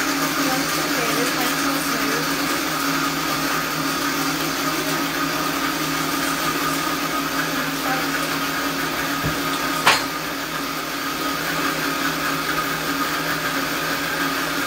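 Countertop blender running steadily, blending pomegranate arils, with a sharp click about ten seconds in.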